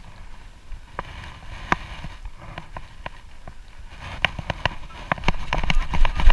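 Long-handled perforated metal sand scoop digging into beach sand: scattered clicks and scrapes of the scoop working the sand. From about five seconds in a louder, pulsing rattle and scrape as the scoop comes up full of sand and is shaken to sift it.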